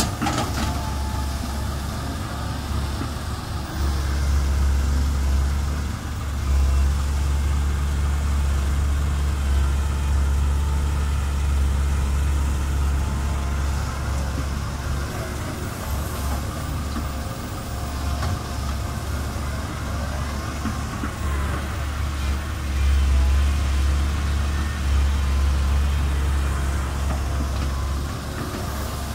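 Diesel engine of a Komatsu PC130 excavator running while it works, a steady low drone that grows louder in several stretches.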